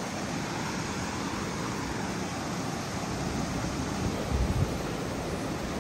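Steady rush of river water, with a brief low thump about four seconds in.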